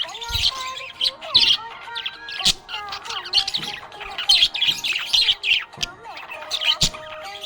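Budgerigar chirping and chattering: a steady stream of quick, short high chirps with no pause.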